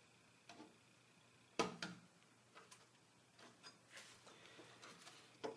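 Faint clicks and taps of hands working inside an open synthesizer, with one sharper click about a second and a half in and a few softer ticks after it.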